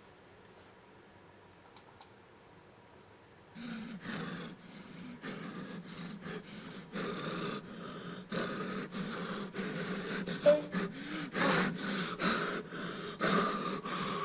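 Sound effect of a frightened man breathing hard: heavy panting breaths that begin a few seconds in and grow louder.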